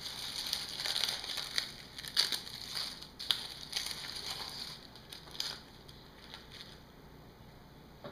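Oven-baked burdock leaves being peeled back and pulled off pork ribs in a metal bread pan, crackling and rustling with small clicks. It dies down after about five seconds.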